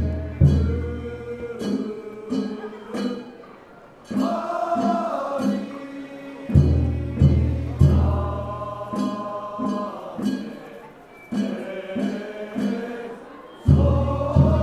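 A group of men chanting a traditional Japanese boat song (funauta) in long held phrases. Deep drum strikes and sharp percussive beats mark the rhythm, with a heavy boom at the start of some phrases.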